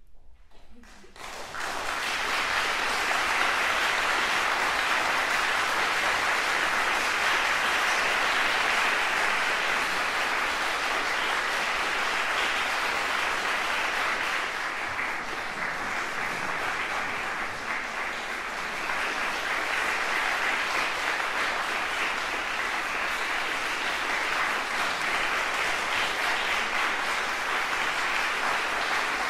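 Audience applauding, breaking out about a second in after a hush; it eases a little midway, then picks up again.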